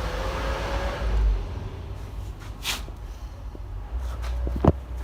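Refrigerator compressor running with a low hum, during refrigerant charging. A brief hiss comes about two and a half seconds in, and a sharp click near the end.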